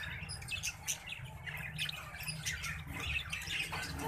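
Many caged pet birds chirping and squawking at once, with short, sharp, high-pitched calls overlapping irregularly.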